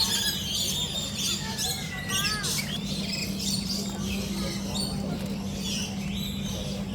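A flock of lories and lorikeets screeching and chattering, many short shrill calls overlapping, over a steady low hum.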